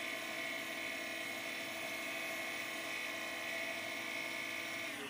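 Wood lathe motor running at a steady speed with a constant whine, spinning a turned wooden piece; right at the end it is switched off and its pitch starts falling as it winds down.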